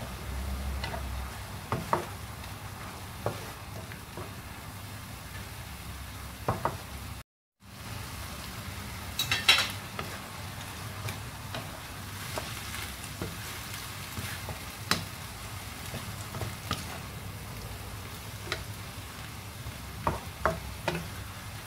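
Wooden spatula stirring a wok of water spinach and fried salmon, scraping and knocking against the pan over a steady sizzle. The knocks come scattered, with a cluster of louder ones about nine seconds in; the sound cuts out briefly about seven seconds in.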